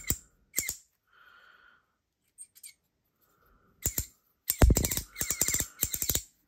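Hearthstone V2 ratchet fidget coin being worked by hand: a few scattered clicks and a short squeak, then from about four and a half seconds in a quick run of ratchet clicks, about six a second, with a high squeak under them like a bird chirping.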